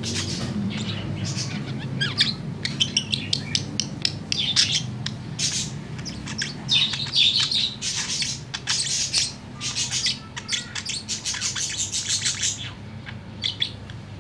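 Budgerigar warbling: a fast, continuous run of chirps, clicks and squeaky chattering notes. It thins out near the end.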